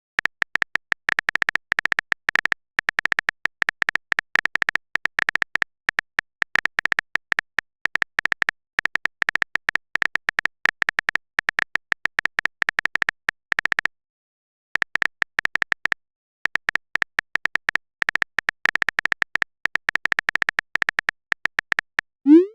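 Keyboard typing sound effect: a dense, irregular run of quick clicks, with two short pauses about two-thirds of the way through. Just before the end a short rising blip sounds, like a message-sent pop.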